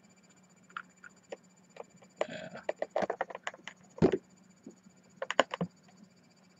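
Handling of a boxed action figure's plastic packaging: a short rustle, scattered clicks and taps, and one heavier knock about four seconds in. A faint steady hum sits underneath.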